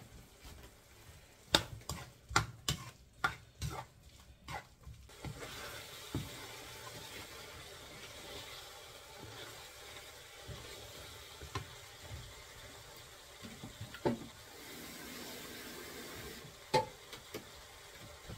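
Tomato sauce sizzling in a frying pan while it is stirred with a spatula. A quick run of sharp knocks comes in the first few seconds, then a steady sizzle with an occasional single knock.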